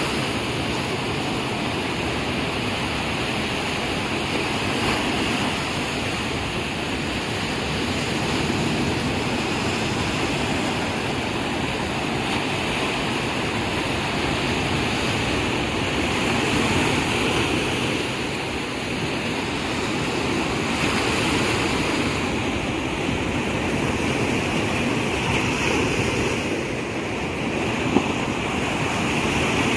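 Sea surf breaking and washing up a sandy beach: a steady, continuous rush of waves that swells and eases gently.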